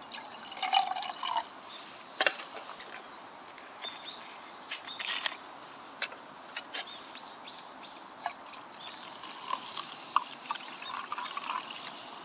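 Canned lemon sour poured into a metal camping mug, with light clinks of can and mug. Near the end, strong carbonated water glugs from a plastic bottle into the mug.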